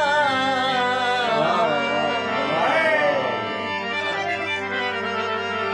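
Harmonium playing under a male singer holding a long wavering sung note that glides down and dies away about three seconds in. After that the harmonium plays on alone with steady held notes.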